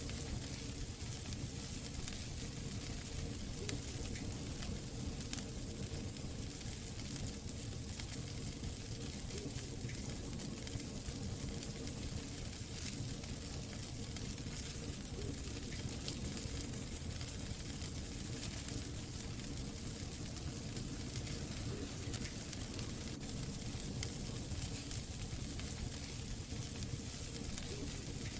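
Wood fire crackling in a brick fireplace: a steady hiss with irregular sharp pops and snaps from the burning logs.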